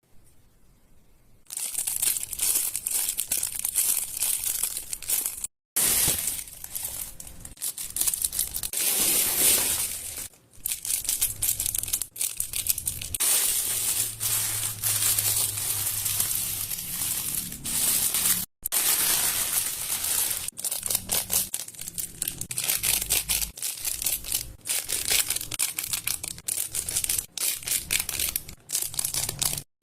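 Fidget toys being handled close to the microphone: a dense run of crinkling, crackling clicks that breaks off twice for a moment.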